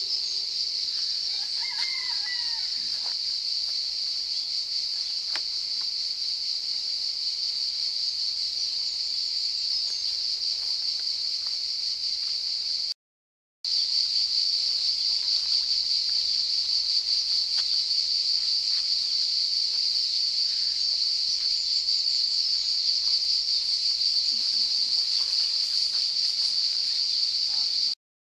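Chorus of cicadas shrilling steadily and unbroken, with a short call heard about two seconds in. The sound drops out for a moment about halfway and again at the very end.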